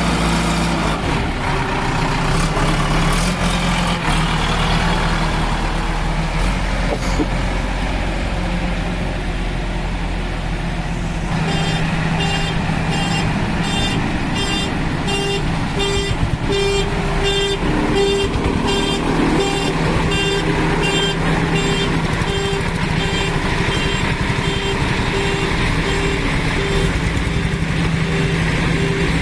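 Diesel engine of a JCB 3DX backhoe loader (Kirloskar engine) running steadily. From about a third of the way in, a reversing alarm beeps evenly, about three beeps every two seconds.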